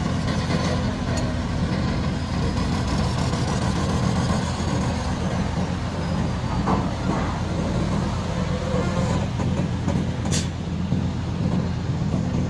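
Diesel engine of a loaded heavy cargo truck running with a low, steady rumble as the truck rolls slowly past. A single sharp click about ten seconds in.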